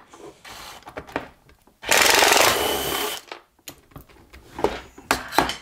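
Cordless drill-driver running for about a second and a half as it backs a screw out of the compressor's plastic housing. Light clicks and knocks of the plastic case come before and after it.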